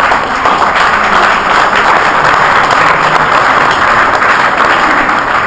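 Audience applauding loudly, a dense steady clapping that swells up just before and holds throughout.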